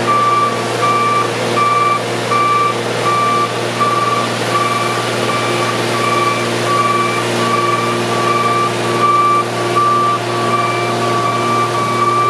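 Boat travel lift backing up: its reversing alarm beeps steadily, about two beeps a second, over the steady hum of the lift's engine.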